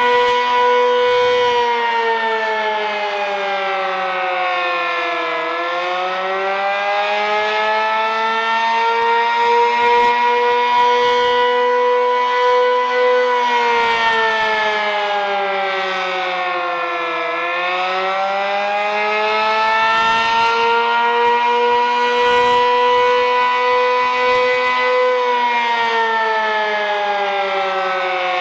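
Sentry 15V2T-B battery-powered dual-tone outdoor warning siren sounding its Attack wail, the pitch slowly falling and rising again about every twelve seconds. It is running below full strength, its batteries in need of replacing.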